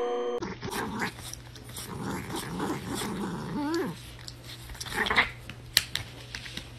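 Young pet in a clear plastic cone collar growling and giving short whining cries that bend up and down in pitch while it squirms, with scattered clicks and knocks.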